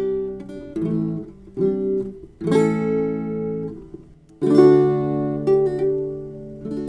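Acoustic guitar background music: strummed chords, each left to ring, struck about once a second with a longer gap near the middle.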